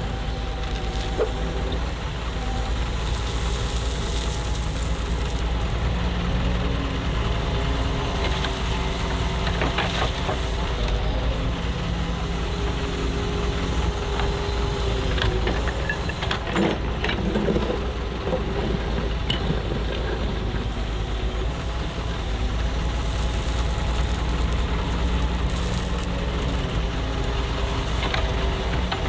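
Heavy diesel engine of a Doosan DX140W wheeled excavator running steadily, with a few knocks and clatters near the middle.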